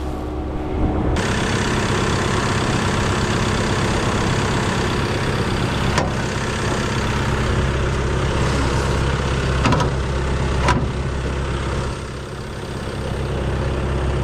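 Hydroseeder truck's engine running with a steady low hum. About a second in a loud rushing hiss joins it and holds until about twelve seconds in, with a few short knocks along the way.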